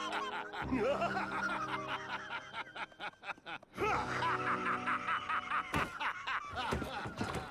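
A male cartoon character's long, rapid cackling laughter in two stretches with a brief break in the middle, over background music.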